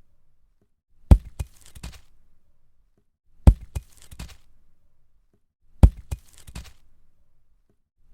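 Concrete block falling on the ground, repeated three times: each a heavy thud followed by a quick second knock as it bounces, then a short patter of smaller knocks.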